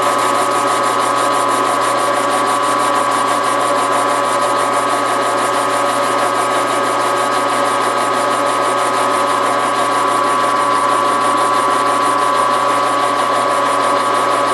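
Metal lathe running steadily under cut, a carbide-insert tool turning down the outside of a metal shaft: a steady whine with a fast, even ticking.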